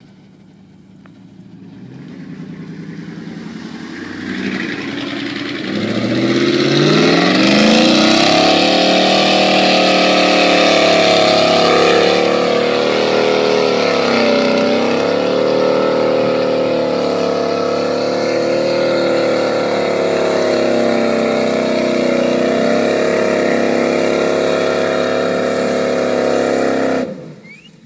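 Ford F-150 pickup's engine revving up over several seconds, then held at high revs under load as the truck pushes through a mud bog, with a brief dip in revs about halfway through. The sound drops away suddenly near the end.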